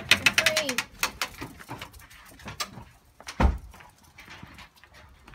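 A screen door being pushed open and pugs' claws clicking on concrete as they scramble out, a quick run of clicks over the first couple of seconds. A single loud thump comes about three and a half seconds in.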